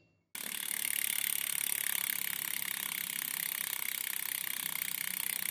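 A road bike's rear freewheel hub ticking in a rapid, even run as the wheel spins free. The ticking starts about a third of a second in.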